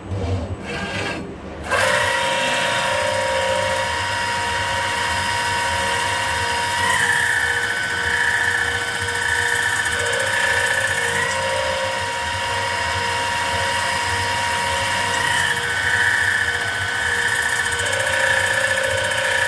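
High-speed spindle of a CNC jewellery engraving and cutting machine. It comes up to speed about two seconds in, then runs with a steady high whine whose pitch steps a few times as it works.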